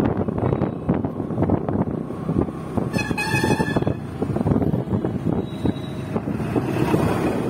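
Road traffic noise with wind buffeting the microphone throughout; a vehicle horn honks once, for just under a second, about three seconds in.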